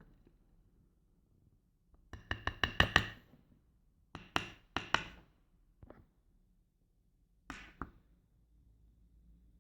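Small metal lock parts clicking and clinking against a hard surface as a gutted padlock core and its pins are handled: a quick run of about eight clicks about two seconds in, then a few single clicks.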